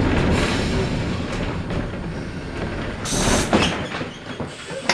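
Streetcar heard from inside the car: the low rumble of wheels and running gear fades away as it slows. A short burst of hiss comes about three seconds in, and a sharp click near the end.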